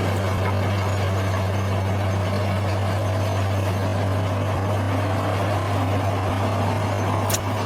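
Bulldozer's diesel engine running steadily at an even low hum, with a single short sharp click near the end.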